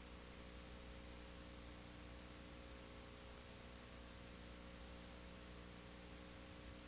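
Near silence: a faint steady hiss with a low electrical hum and no other sound.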